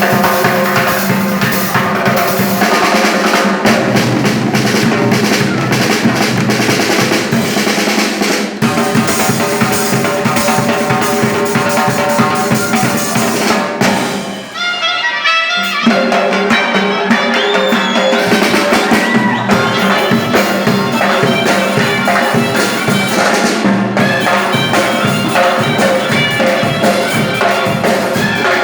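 Loud band music with a driving drum beat and a brass-like lead; it thins out briefly about halfway through, then comes back in full.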